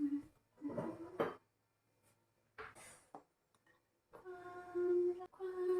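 A person humming two long, steady notes in the second half, after a few short scattered noises.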